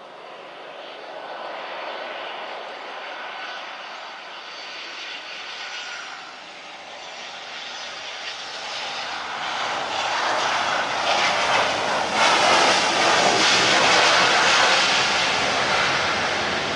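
Airliner engines growing steadily louder as the plane comes close, loudest about twelve seconds in.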